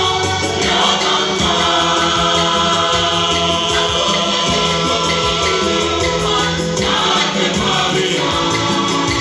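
A church choir singing in several parts, holding long chords over a steady rhythmic bass-and-percussion accompaniment.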